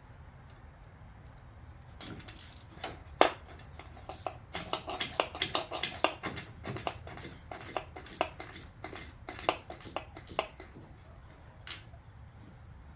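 Ratchet clicking and metal clinking as the intake manifold bolts are worked out of a Chevy 350 V8. Irregular sharp clicks come a few a second from about two seconds in until near the end, with a last faint click after a pause.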